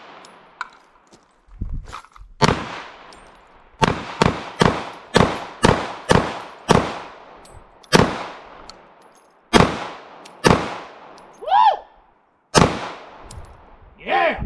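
Semi-automatic pistol firing about a dozen shots in an uneven string, several in quick succession and others a second or two apart, each shot trailing off in an echo.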